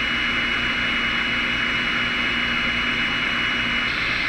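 Radio receiver static: a steady hiss with a high whistle and a low hum tone held together on the channel, both cutting off near the end.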